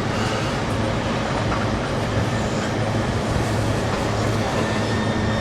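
Steady mechanical drone with a low hum underneath, running evenly with no distinct knocks or clicks.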